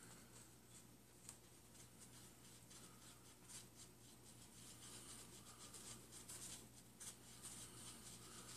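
Faint scratching and rubbing of a small mixing tool stirring two-part glue on a styrofoam plate, in short irregular strokes.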